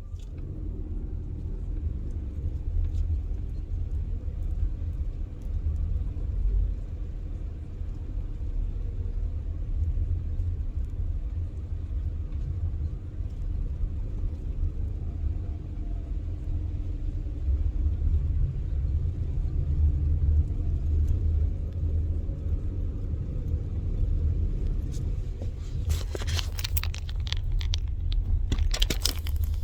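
Steady low rumble, with a short burst of rattling, clattering noises near the end.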